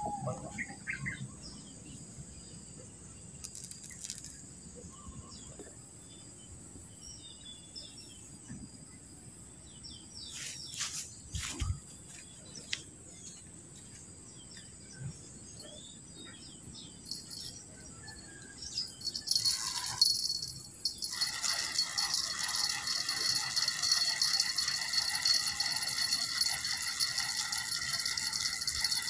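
Spinning fishing reel being cranked to bring in the line: a continuous, fast metallic whirring rattle that starts suddenly about two-thirds of the way in. Before it there are only faint clicks and a steady high-pitched drone.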